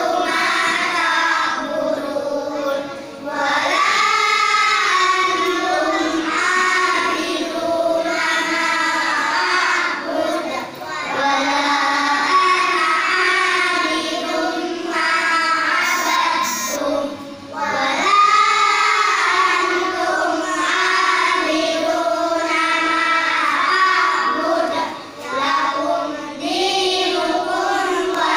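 Children's voices reciting Quran verses aloud in a melodic chant. The chant comes in long phrases broken by short pauses about every seven seconds.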